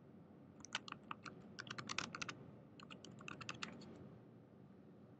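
Faint typing on a computer keyboard: a run of keystrokes lasting about a second and a half, a short pause, then a shorter run.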